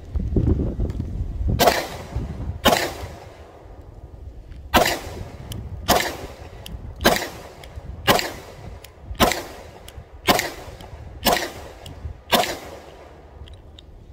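Taurus G3C 9mm compact pistol fired ten times: two shots about a second apart, then after a short pause eight more at a steady pace of about one a second.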